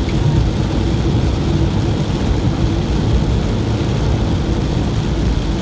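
Steady cabin noise of a car driving in heavy rain: tyres on the wet road and the engine, with rain on the windscreen.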